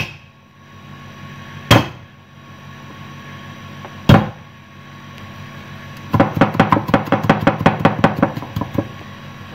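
Cleaver on a thick wooden chopping board: three single heavy whacks as garlic cloves are smashed with the flat of the blade, then, from about six seconds in, rapid mincing chops at about seven a second.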